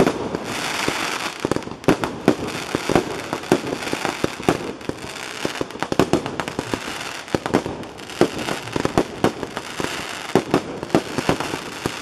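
A barrage of small aerial fireworks: rapid, irregular pops and bangs of bursting shells, over a steady hiss and crackle of rising trails that is strongest in the first couple of seconds.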